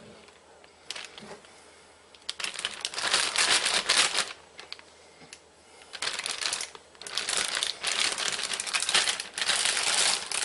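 Plastic Ziploc bag crinkling as it is handled and pressed flat, in bursts that begin about two seconds in, with a short lull midway.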